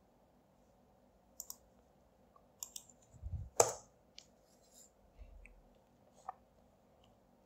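Faint, scattered clicks of a computer mouse and keyboard, about half a dozen, with the loudest click, just after a low thump, about three and a half seconds in.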